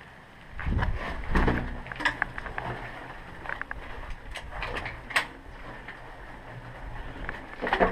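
Footsteps and rustling gear as a player moves around a derelict building's room, with scattered sharp clicks and knocks.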